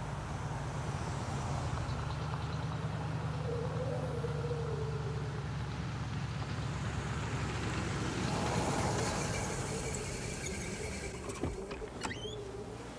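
Steady low rumble of a running motor vehicle engine, swelling slightly about two-thirds of the way through, with a couple of sharp clicks near the end.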